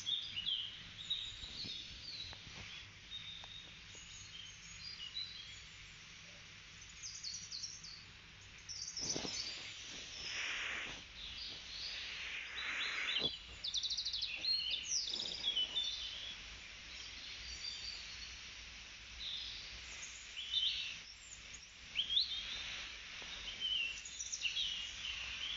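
A nature sound-effects recording of birdsong: several birds chirping and trilling in short, overlapping calls, with a faint steady low hum beneath.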